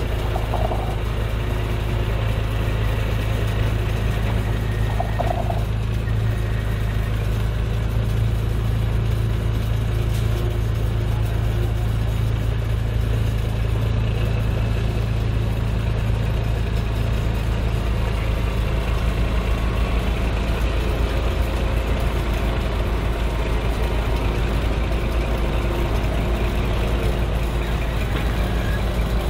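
Heavy diesel prime mover engine running steadily at low revs as the truck slowly tows a tram on a multi-axle low-loader trailer.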